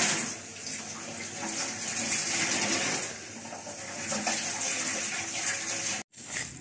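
Tap water running steadily over chicken mince in a plastic colander, a dense hiss that cuts off suddenly near the end.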